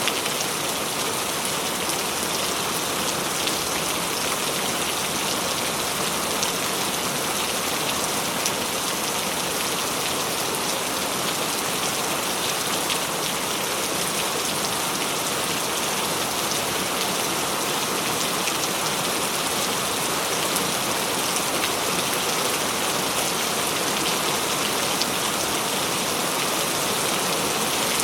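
Steady heavy rain falling and pattering on a surface, a dense even hiss with many small drop hits.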